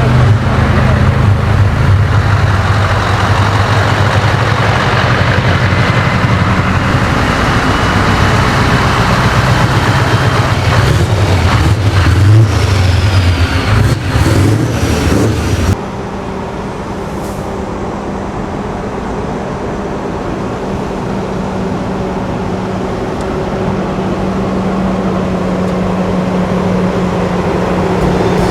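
Heavy truck engines running loud and rough, then an abrupt cut about halfway through to a quieter, steady low engine drone.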